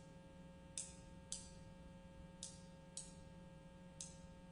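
Five light, dry taps of thin percussion sticks, spaced unevenly, over a faint steady hum.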